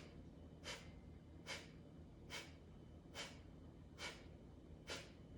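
A person exhaling through the nose in short, sharp sniffs, evenly spaced a little under a second apart: the segmented eight-sniff out-breath of a yogic breathing exercise, with the navel pumped back on each sniff.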